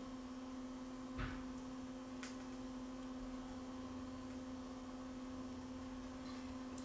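Faint steady electrical hum, with a soft tick about a second in and another about two seconds in.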